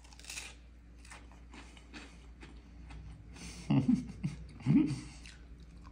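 Crunchy chewing of a mouthful of crisp tostada topped with shrimp salad, in many short crunches. Two short hummed "mmm" sounds of enjoyment, about four seconds in, are the loudest part.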